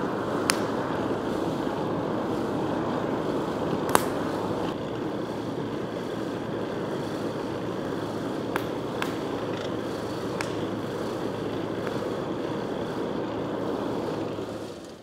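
Electric Zomax forge blower running with a steady hum, pushing air into a forge fire that rushes and gives a few sharp pops and crackles. The sound fades out near the end.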